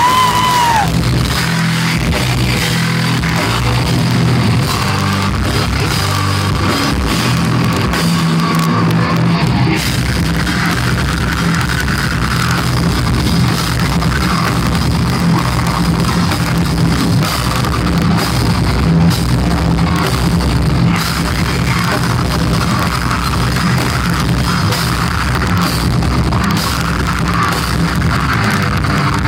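Thrash metal band playing live at full volume: distorted electric guitars, bass and a pounding drum kit, with the vocalist screaming into the microphone.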